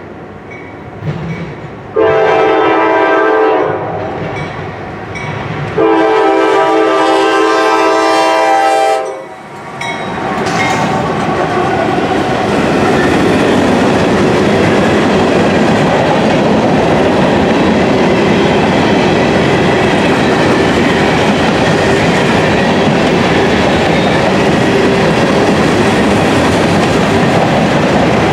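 Norfolk Southern GE AC44C6M diesel locomotive sounding its horn in two long blasts. About ten seconds in, the locomotive and its grain train go past with a loud, steady rumble of wheels on the rails.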